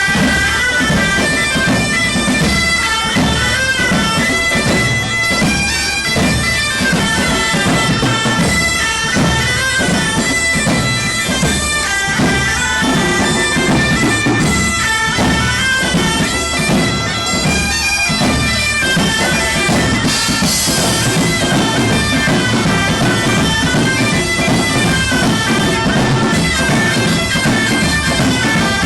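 Background music: a wind-instrument melody with held tones over a steady, regular drum beat.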